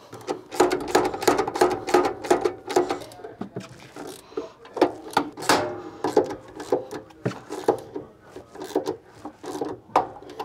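Stiff insulated earth cables being bent and worked into a metal switch enclosure by hand: irregular rubbing and scraping with many sharp clicks and knocks as the cable and tools catch on the steel box.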